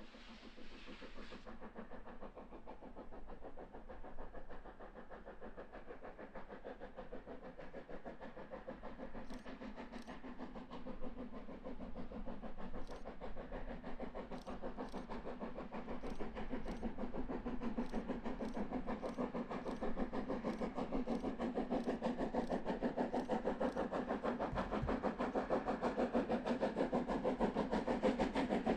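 DR Class 99.23–24 2-10-2T narrow-gauge steam tank locomotive working up a grade with a train, its exhaust beats coming in a rapid, even rhythm and growing steadily louder as it approaches.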